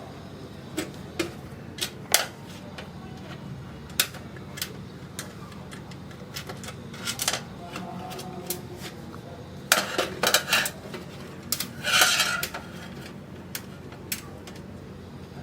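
Screwdriver and small metal screws clicking and clinking against a desktop PC's metal case while an SSD is screwed into the drive bay: scattered sharp clicks, a quick cluster about ten seconds in, and a brief rattle about twelve seconds in.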